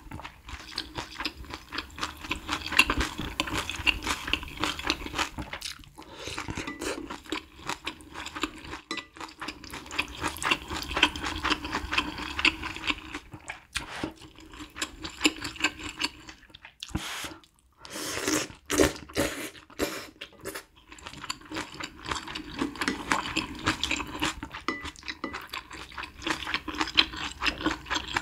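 Close-miked eating: malatang noodles and broth slurped from chopsticks and a wooden spoon and chewed, a dense run of irregular smacking clicks, with a short lull about two-thirds of the way through.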